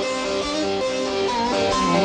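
Bağlama (Turkish long-necked saz) played instrumentally: a quick picked melody over a steady drone note from its open strings.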